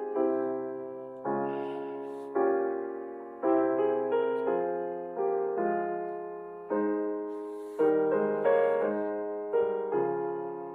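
Solo piano playing slow chords, a new chord struck about every second and left to ring and fade.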